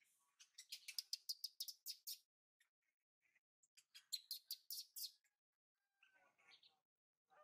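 Baby macaque crying in two bursts of rapid, high-pitched chirping squeals, one about a second in and one about four seconds in, with fainter, lower calls near the end.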